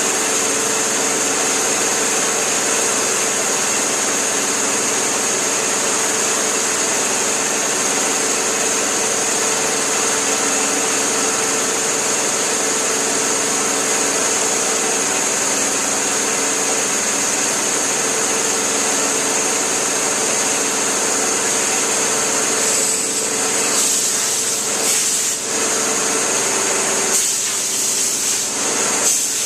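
Steady machinery running: a constant hiss with a high-pitched whine and a steady hum underneath. Several short rustling or scraping noises come in over the last few seconds.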